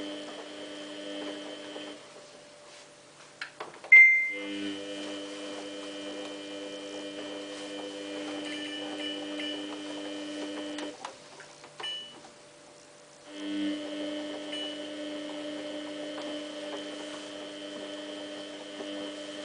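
Samsung WF8804RPA washing machine running in service mode: a steady electrical hum that cuts out and back in twice, with a sharp click about four seconds in as it restarts.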